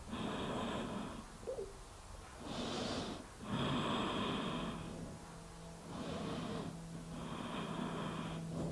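A woman's slow, deep breathing close to the microphone, several soft breaths in and out, each about a second long with short pauses between, as she holds a rounded-spine stretch.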